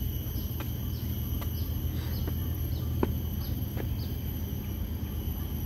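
Insects trilling steadily with short high chirps, over a steady low hum. Footsteps on concrete steps land about every three quarters of a second.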